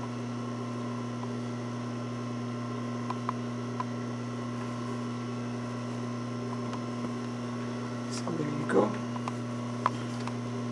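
Steady electrical mains hum with a few faint ticks, and one short pitched sound about eight and a half seconds in.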